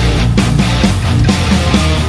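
Heavy metal band playing live through a stadium PA: distorted electric guitars and bass over drums, with a drum hit about twice a second.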